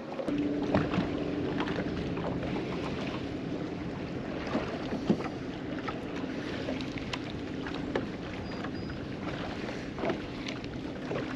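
Steady low hum of a fishing boat's motor over wind noise, the hum fading out near the end, with scattered light clicks and knocks on the boat.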